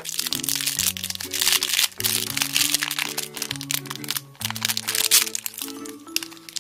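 A foil blind bag crinkling and crackling continuously as hands tear it open along its tear strip. Background music with a simple stepping melody plays underneath.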